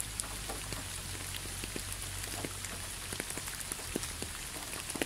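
Steady rain falling, an even hiss with individual drops ticking now and then.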